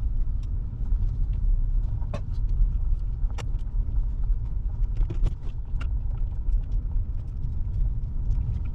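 Vehicle on the move: a steady low rumble of engine and road, with scattered light clicks and rattles.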